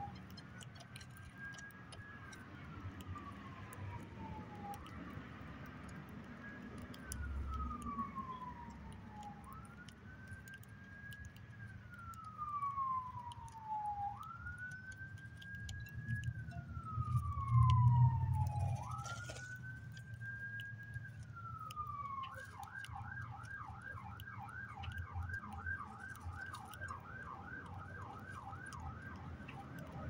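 An emergency-vehicle siren sounds a slow rising-and-falling wail, one cycle every four to five seconds. About three-quarters of the way through it switches to a fast yelp, rapid up-and-down sweeps of about three a second.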